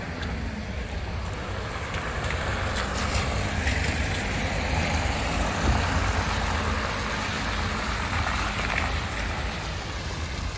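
A van driving past over wet paving: engine and tyre noise swell through the middle and fade near the end.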